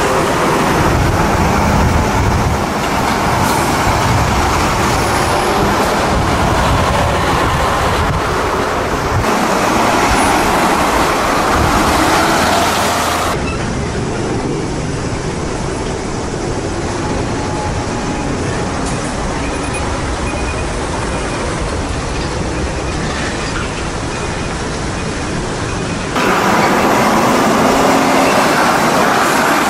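Heavy diesel trucks and tractor-trailers driving past: dense engine and tyre noise from passing truck traffic. The sound changes abruptly twice, at about 13 s and again near the end, as the recording cuts between spots.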